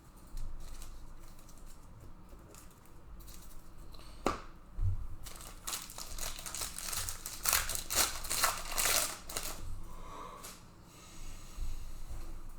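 Plastic wrapper of a Panini Prizm trading-card pack crinkling and tearing as it is opened: a single sharp click, then about four seconds of dense crackling that fades out.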